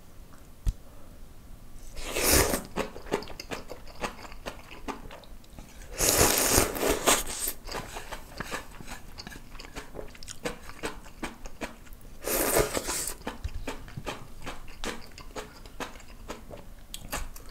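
A person slurping Shin Ramyun Dry Noodle instant ramyun, three long slurps about two, six and twelve seconds in, with chewing between them heard as a run of small clicks close to the microphone.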